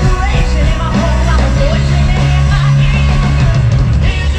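Live rock band playing a song with a singer, drums, bass and guitars.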